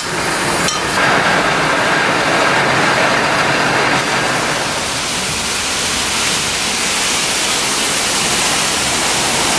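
Self-serve car wash pressure wand spraying a high-pressure jet of water onto an area rug on concrete: a loud, steady hiss that starts suddenly.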